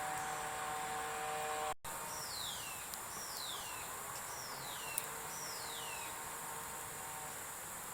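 An animal calling outdoors: four falling whistled calls, about one a second, over a steady high chirring of insects. Before a sudden cut about two seconds in there is a steady hum.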